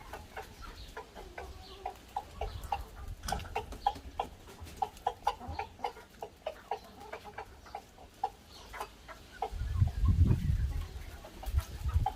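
Flock of chickens clucking in many short, quick clucks while they peck at food scraps, with the rooster giving low food calls to bring the hens to the food. A low rumble comes in about ten seconds in.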